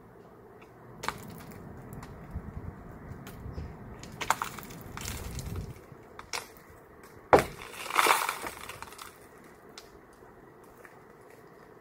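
A hand tool striking a glass door panel: several sharp knocks with glass cracking and breaking, the loudest blow about seven seconds in, followed at once by a longer crunching burst of breaking glass.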